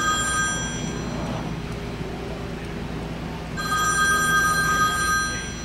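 A telephone ringing: a steady two-tone ring about two seconds long at the start and again near the end, over a low steady hum.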